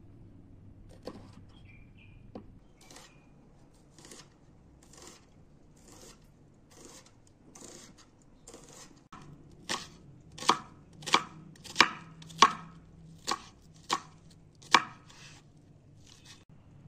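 Chef's knife slicing onion on a wooden cutting board: soft, regular cuts about one a second, then, about ten seconds in, a run of eight louder, sharper knocks of the blade hitting the board, about three every two seconds.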